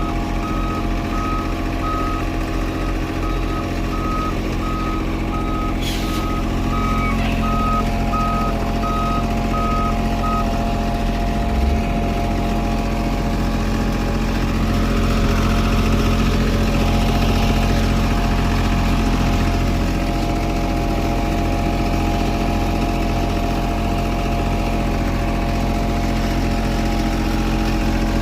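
Diesel engine of heavy paving equipment running steadily, its backup alarm beeping about once a second for the first ten seconds or so and then stopping as the machine quits reversing. One sharp click about six seconds in.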